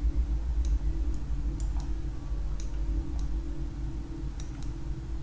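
Scattered sharp clicks of a computer mouse, about seven in five seconds, over a steady low hum.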